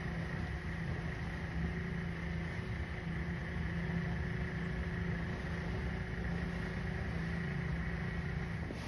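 Boat engine running steadily, a constant hum with a faint high whine, over wind and water noise; the hum stops near the end.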